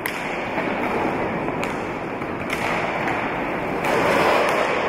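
Roller hockey in play in a sports hall: a steady hum of crowd noise and quad skate wheels rolling on the floor, with a few sharp clacks of sticks striking the ball. The noise swells a little under four seconds in.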